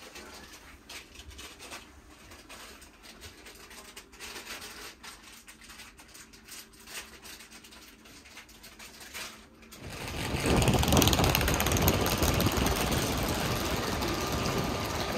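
Faint scattered clicks and rustles in a quiet passenger train coach. About ten seconds in, loud steady noise of a railway platform beside a standing passenger train takes over.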